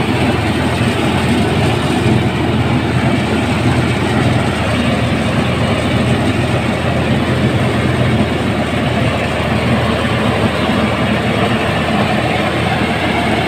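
Truck-mounted mobile rice mill running steadily under load, hulling and milling palay into rice.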